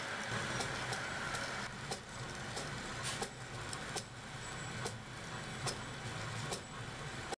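Rostock Mini delta 3D printer printing: steady whirring of its motors and fan, with irregular sharp clicks every half second or so as the print head moves.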